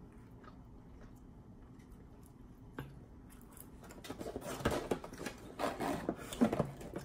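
Cardboard nugget box rubbing and scraping as a hand digs nuggets out of it, starting about four seconds in after a quiet stretch with one soft click.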